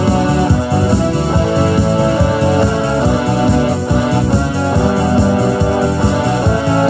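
Electronic keyboard playing a gospel hymn instrumentally in an organ-like voice: sustained chords over a steady beat.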